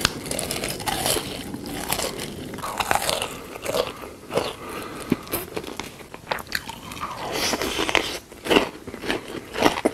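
Close-miked eating sounds: a person biting into and crunching food, with chewing between the bites, in irregular crackly strokes.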